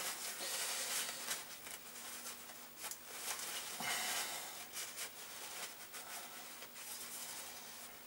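Faint rustling with scattered light clicks and knocks, the sound of hands handling something.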